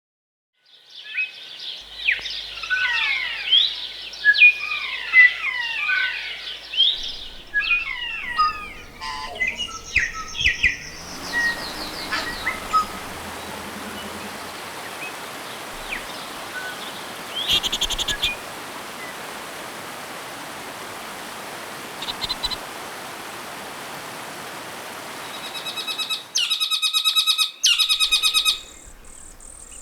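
New Zealand forest birds singing in a dense chorus of quick whistled and warbled notes. After about ten seconds the song thins out over a steady rushing hiss, with only a few scattered calls. Near the end comes a short run of rapid repeated notes.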